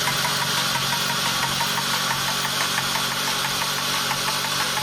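2006 Mini Cooper JCW (R53) engine being cranked over on its starter motor without firing, a steady whir with quick, even ticking: a compression test on cylinder one, which reads zero compression.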